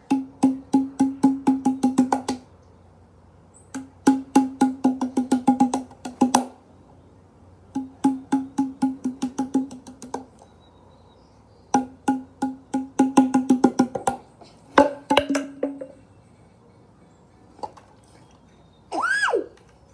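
Battery-powered toy sound effect: four bursts of rapid clicking, about seven clicks a second over a steady low buzz, each lasting about two seconds with short pauses between, then a brief shorter burst.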